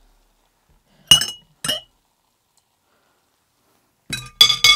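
Glass clinking: two sharp clicks a little after a second in, then a quick run of ringing clinks near the end as a small glass jar is picked up and handled.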